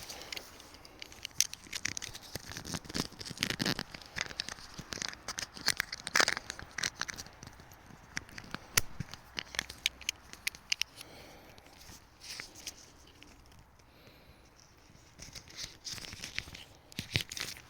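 Handling noise from a tarp and its guy lines: rustling and crinkling of the fabric with scattered sharp clicks and scrapes, busiest in the first few seconds and again near the end.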